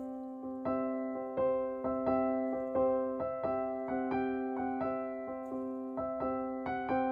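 Background music: a slow keyboard melody with single notes struck about every three quarters of a second over a held low tone.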